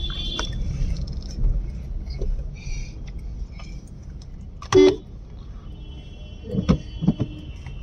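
Car cabin at low speed: steady engine and road rumble, with one short honk of the car horn about five seconds in.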